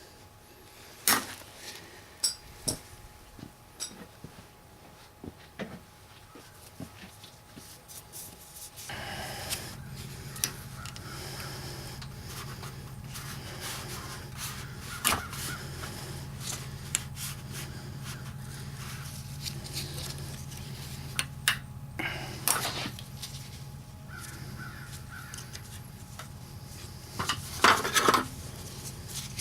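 Metal tool clicks and scrapes as pliers work at a snap ring in an aluminium turbo pedestal, with sharp clicks spread through and a loud cluster near the end. A steady low hum comes in about a third of the way through.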